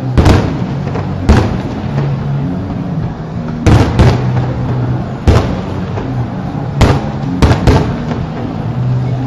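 Fireworks bursting: about eight sharp bangs at uneven intervals, two of them in quick succession near the end, over a steady low hum.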